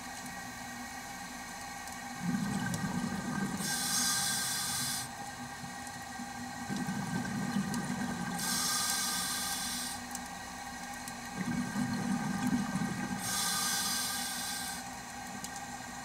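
A diver's breathing gear underwater, about three breaths: each is a rumble of bubbles followed by a high hiss from the regulator, over a faint steady hum.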